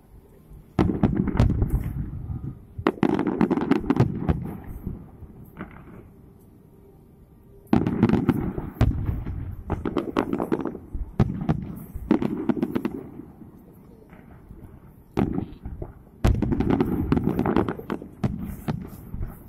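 Fireworks display: aerial shells bursting in volleys of rapid bangs, each cluster lasting a second or two, with short quieter lulls between the salvos.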